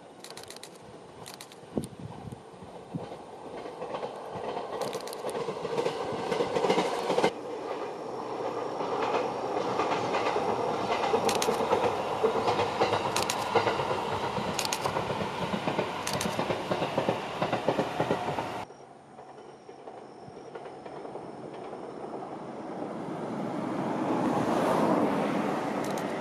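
A train running past on the track, its noise building with scattered sharp clicks of wheels over rail joints. The sound cuts off abruptly about two-thirds of the way through, and another train's noise then grows louder toward the end.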